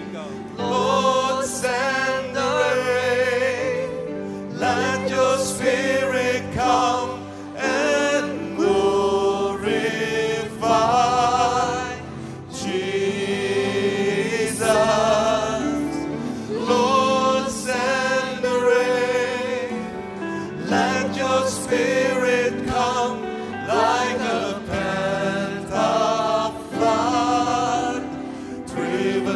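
Worship singing: several voices singing a gospel song together over instrumental accompaniment with sustained chords and a regular beat.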